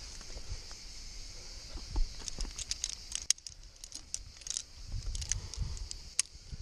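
Climbing carabiners and quickdraws clinking against the steel chain and rings of a top anchor as they are clipped and handled, a rapid run of sharp metallic jingles and clicks starting about two seconds in.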